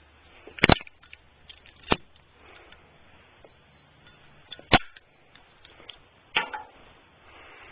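Zippo lighter cases with butane inserts being handled, the lids clicking open and shut: four sharp clicks, the first and third the loudest.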